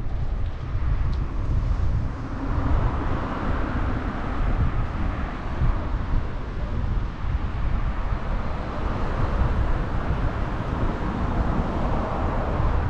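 Wind buffeting the microphone of a camera carried on a moving bicycle, a steady deep rumble, with a broad rushing noise that swells through the middle of the stretch.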